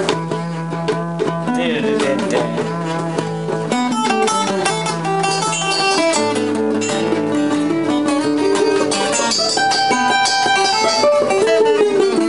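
Guitar playing a loose improvised jam, with held notes and chord changes.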